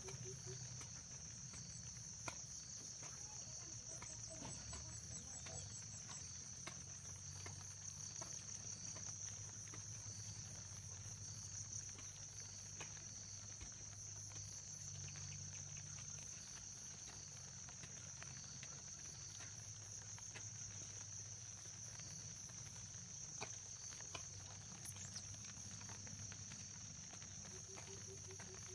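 Crickets or similar insects trilling steadily, a continuous high-pitched buzz with a second, lower chirp pulsing about once a second.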